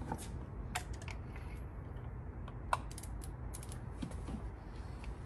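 Irregular light metallic clicks and taps of a socket wrench and extension working a spark plug loose, with one sharper click near the middle.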